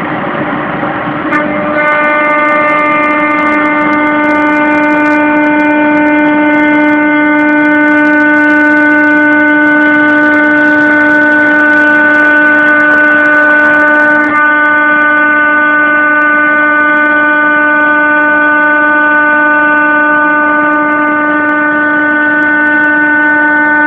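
CNC milling spindle running with a steady high whine while milling sheet textolite (phenolic laminate). The whine settles about a second and a half in and shifts slightly about halfway through.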